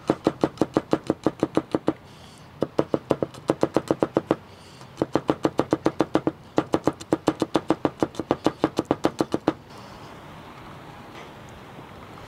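Chef's knife rapidly chopping garlic on a cutting board, about five or six chops a second in four quick runs with short pauses between them. The chopping stops about nine and a half seconds in.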